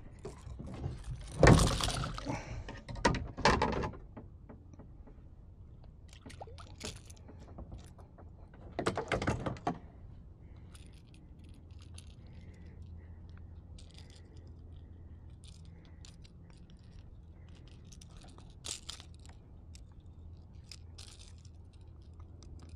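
A landed snook being handled and unhooked: the fish kicking in the grip and the lure's hooks and metal gripper rattling and jangling. Several loud scuffles in the first few seconds and another about nine seconds in, then light clicks and rattles.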